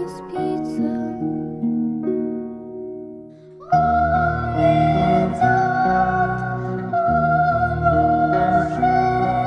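Slow lullaby-like music: plucked, harp-like notes, then about four seconds in a held high wordless tone comes in over a low bass.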